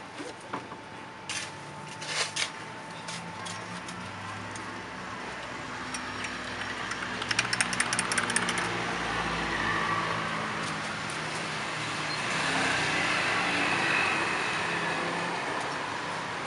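Passing motor traffic, engines running and fading in and out, with sharp clinks of a metal spoon against glass and ice: a few early on and a quick run of them about seven seconds in.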